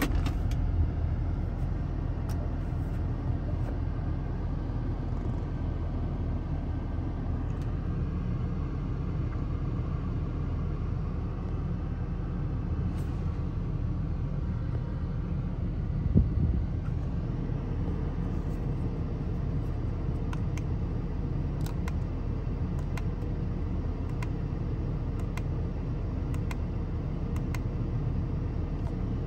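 The 2016 Maserati Ghibli S's 3.0-litre twin-turbo V6 idling steadily in Park, heard from inside the cabin. There is a brief swell in level about sixteen seconds in.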